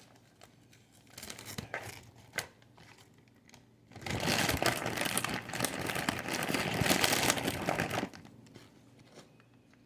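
Crinkling and tearing as fresh spinach leaves are broken up by hand. Scattered light rustles come first, then a denser stretch of crinkling lasting about four seconds in the middle.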